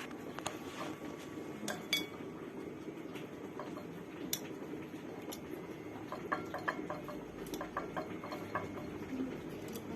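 A utensil clinking and tapping against a bowl as noodles are served into broth: scattered single clicks, then a run of quick light taps in the second half.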